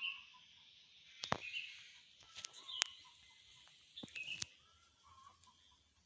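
Birds giving short, repeated chirps, with several sharp clicks or knocks between about one and four and a half seconds in that are louder than the calls.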